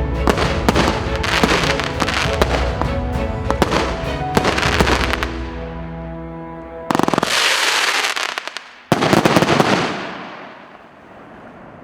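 Multi-shot fireworks cake firing a rapid volley of shots until about five seconds in. Two dense crackling bursts follow, around seven and nine seconds in, and the sound then fades out.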